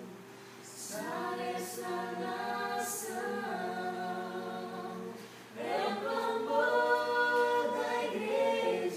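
A group of voices singing a worship song unaccompanied, in long held phrases; a louder phrase begins a little past halfway.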